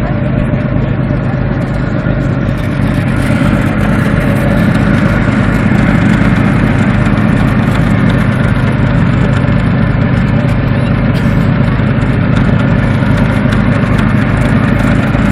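Motorboat engine running steadily, with a haze of wind and water noise; it grows a little louder about four seconds in.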